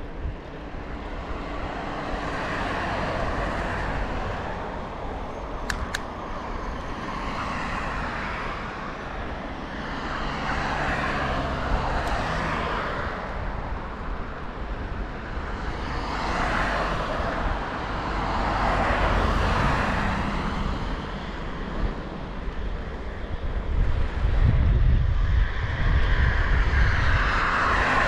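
Cars passing one after another on the road alongside, each a swell of tyre and engine noise that rises and fades away, about six in all. A deeper rumble builds near the end.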